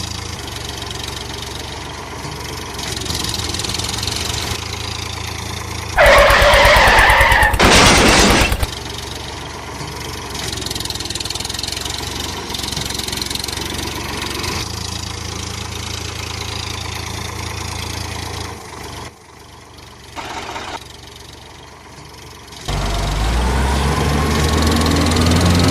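An engine running steadily. About six seconds in it becomes much louder and clatters for a couple of seconds, it drops quieter later on, and it revs up near the end.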